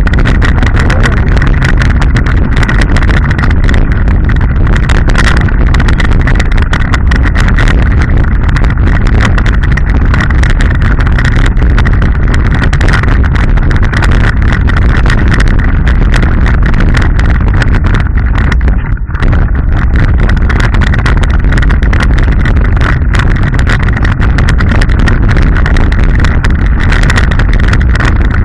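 Mountain bike rolling fast over loose rocks and gravel: a constant loud clatter and rattle of tyres and bike over stones, with heavy wind rumble on the microphone. The noise briefly drops about two-thirds of the way through.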